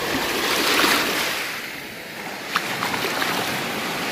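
Shallow stream water rushing and splashing around a hand in the water, swelling to its loudest about a second in. A few small sharp clicks come near the end.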